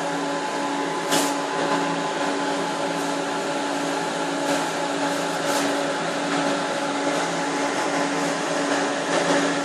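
Steady whir of a running high-power UHF TV transmitter's cooling fans: an even rushing noise with a steady hum under it. A few brief clicks sit on top, the sharpest about a second in.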